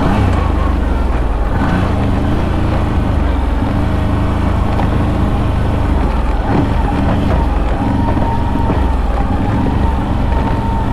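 ATV engine running at a steady pace as the quad rides along a trail, a constant low drone.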